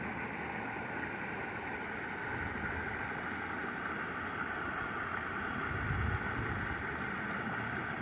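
Water splashing steadily over a low rock weir into a pond, with a brief low rumble of wind on the microphone about six seconds in.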